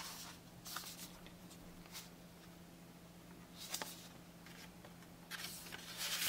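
Cardboard CD sleeves being handled: soft rubbing and sliding of card on card, in a short burst about a second in, another near four seconds, and a longer one near the end.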